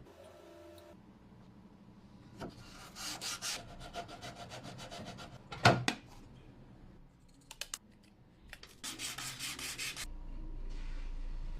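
Hard objects rubbing and scraping in bursts, with one sharp knock about halfway through and a few small clicks. A steady low hum sets in near the end.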